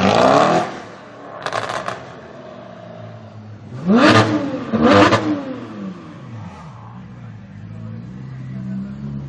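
Porsche 991 GT3's naturally aspirated flat-six through an iPE Innotech titanium valved exhaust: a rev dies away at the start, a short crackle follows, then two sharp throttle blips about four and five seconds in, before it settles to a steady idle.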